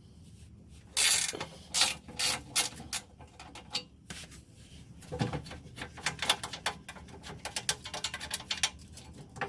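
Hand ratchet clicking in short, uneven runs while loosening 13 mm skid-plate bolts, with a brief louder clatter about a second in.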